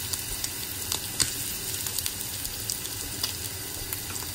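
Sticks of butter melting and sizzling in hot fat in a frying pan: a steady hiss with scattered pops and crackles, one sharper pop about a second in. It is the butter going down for a lemon-butter sauce.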